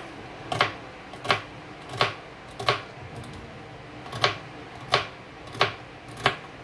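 Kitchen knife chopping a celery stalk on a plastic cutting board: about eight crisp chops, each knocking against the board, roughly two-thirds of a second apart with a short pause midway.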